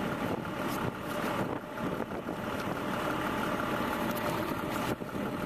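Steady engine-like running noise, with a few light clicks.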